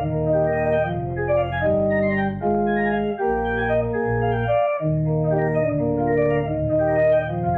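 Organ playing a slow piece in held, sustained chords over a steady bass line, the chords changing about once a second.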